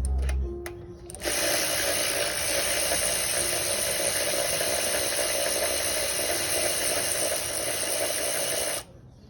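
Power tool running steadily for about seven and a half seconds, then cutting off suddenly: a hand tool used to take fasteners off an engine being stripped down.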